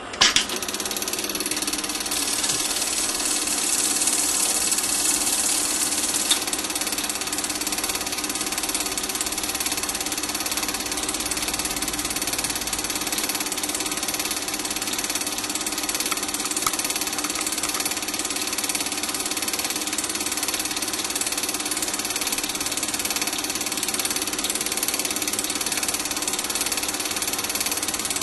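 Super 8 film projector running: the steady whirr and clatter of its motor and film-advance mechanism, starting abruptly at the very beginning.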